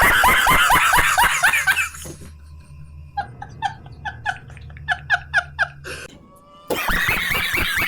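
A man laughing hard, loud, rapid and high-pitched, then a quieter run of short squeaky giggles at about five a second, then the loud laugh again about two-thirds of the way in.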